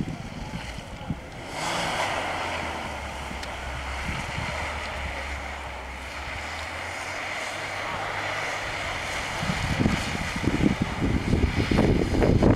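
A distant Mitsubishi Pajero's engine drones steadily under a hissing rush as it churns through snow and slush. From about ten seconds in, gusts of wind buffet the microphone and cover it.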